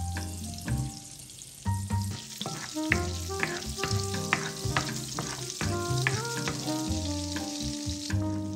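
Food sizzling in a frying pan as it is stirred, with scattered light clicks of the utensil. Background music with a bass line plays underneath, and the sizzle cuts off abruptly near the end.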